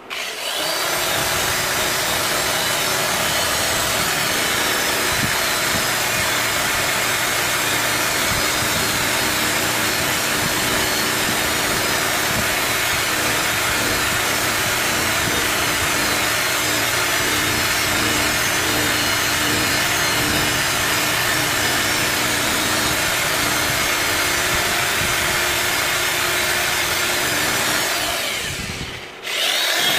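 Electric drill spinning a wire brush against metal, scrubbing steadily. Near the end it stops briefly and then starts up again.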